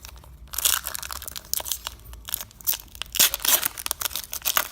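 A Pokemon TCG booster pack's foil wrapper being torn open and crinkled, in crackling bursts about half a second in and again from about three seconds in.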